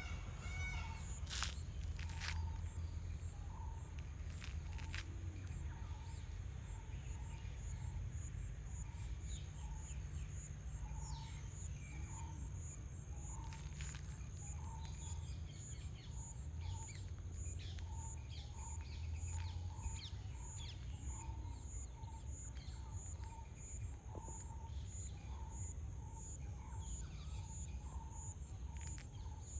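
Outdoor natural ambience: a steady high-pitched insect drone, with a short bird note repeated about once a second and low wind rumble underneath.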